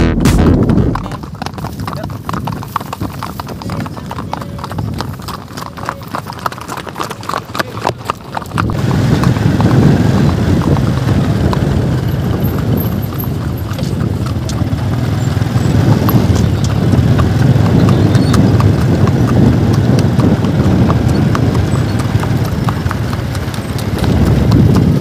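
Hooves of several ridden horses clip-clopping on grass and a dirt path. About nine seconds in, the sound becomes louder and fuller, heard close up from a horse's back.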